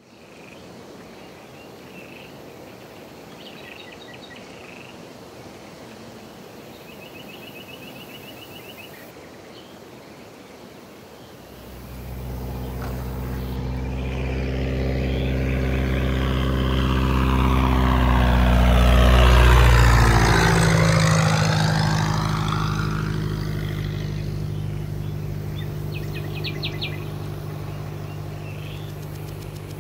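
A low-flying light propeller plane comes in. Its engine drone starts about twelve seconds in, grows louder, and passes overhead with a clear drop in pitch. After that it carries on more quietly. Birds chirp now and then before it arrives and again near the end.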